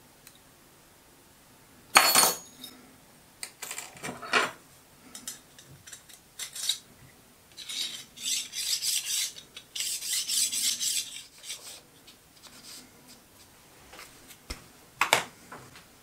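Digital caliper handled on a bench: a sharp metal clack about two seconds in, a few clicks, then the sliding jaw scraped along the steel beam in two rough strokes. The slide does not run smoothly.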